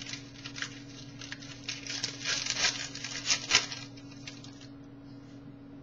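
Trading card pack wrapper being torn open and crinkled by hand, a run of irregular crackling rustles that dies down to a few light ticks after about four seconds. A faint steady hum runs underneath.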